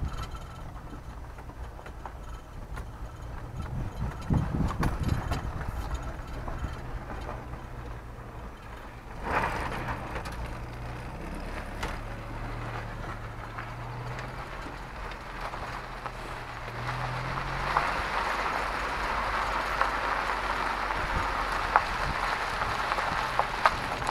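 Tracker 4x4 SUV driving slowly on a dirt and gravel road, heard from inside the cab: a low engine hum that shifts in pitch, with tyre and road noise. A hiss sets in about nine seconds in and grows louder in the second half, with a few sharp ticks near the end.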